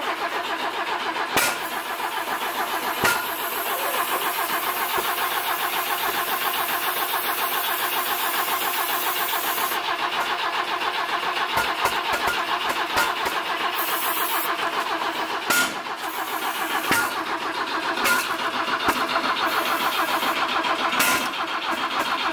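BMW E21's four-cylinder engine being cranked over on the starter without catching, a steady rhythmic churn broken by a few sharp pops from the exhaust. It sounds like it wants to fire but won't run, with unburnt mixture firing out of the tailpipe after the distributor plug wires were rearranged.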